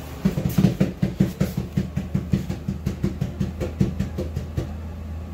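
Puppies eating dry kibble from a bowl: a quick run of crunches and clatters, about five or six a second, loudest at first and fading toward the end.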